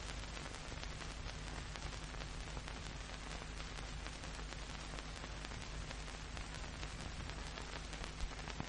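Steady hiss with faint crackle and a low hum: background noise of an old film soundtrack.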